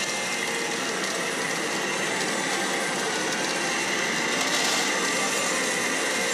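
Steady din of a pachinko parlor: dense clattering of steel pachinko balls and the noise of many machines running together.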